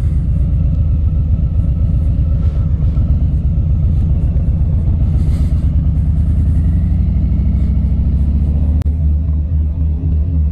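2019 Harley-Davidson Low Rider's Milwaukee-Eight 107 V-twin running at low road speed, a steady pulsing rumble. About nine seconds in the engine note changes and evens out.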